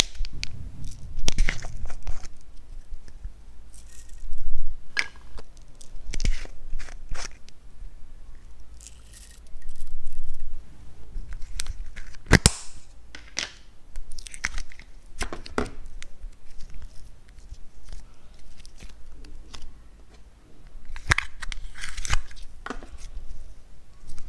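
Close-up handling of plastic makeup packaging and slime containers: scattered clicks and crackles, with one sharp snap about halfway through as a plastic slime tub is opened.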